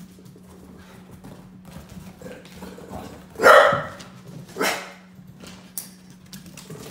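A dog barks twice, a long bark about halfway through and a shorter one about a second later, over light scattered ticking of paws on the floor.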